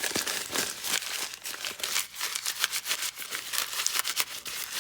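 A paper bag being crumpled and squished in the hands, a dense run of irregular crackles; the crumpling softens the paper.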